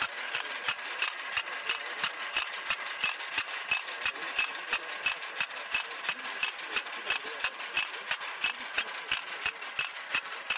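Walk-behind powered onion transplanter running as it plants, its small engine humming under a fast, even clicking of the machine's mechanism, about five clicks a second.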